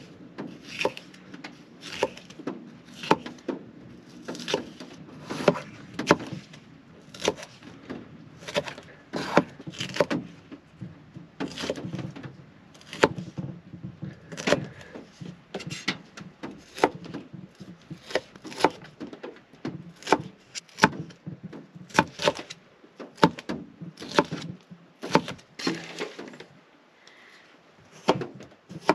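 Kitchen knife chopping vegetables on a cutting board: a long run of irregular sharp knocks, about one or two a second, with a short pause near the end.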